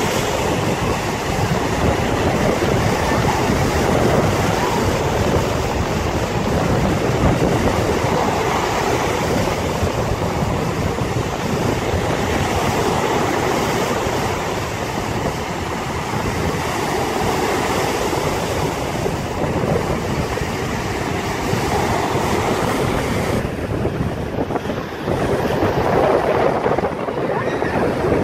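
Storm waves breaking and washing up the shore in a continuous, swelling roar of surf, with strong wind buffeting the microphone.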